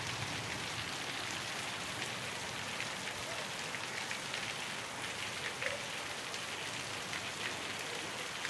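Steady heavy rain falling on a flooded street, with water streaming off the edge of a roof.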